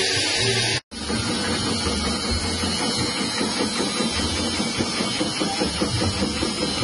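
Small electric motor of a stainless chip-slicing machine running while its blade cuts tuber pieces fed through the chutes into thin slices, a steady whirring with rapid chopping. The sound cuts out briefly about a second in.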